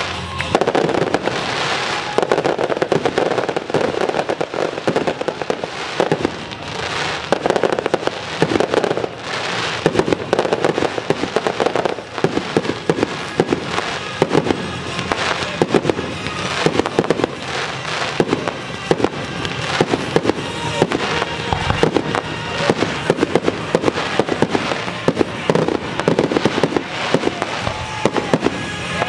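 Aerial fireworks display: a dense, continuous barrage of shells bursting and crackling, with many reports in quick succession.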